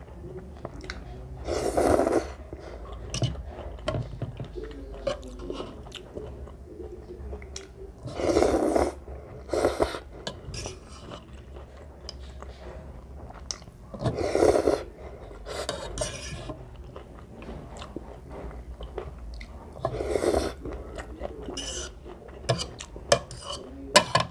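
A person eating ramen noodles: four loud slurps about six seconds apart, with chewing and a metal fork clicking against a ceramic bowl between them.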